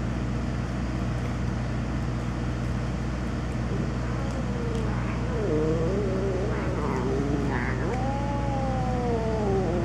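Electrical transformer giving off a loud, steady hum. From about halfway in, a cat's drawn-out, wavering calls rise and fall in pitch over the hum.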